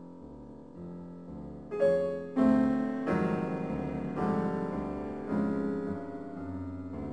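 Piano music: soft notes at first, then louder chords struck about once a second from about two seconds in, each ringing and fading.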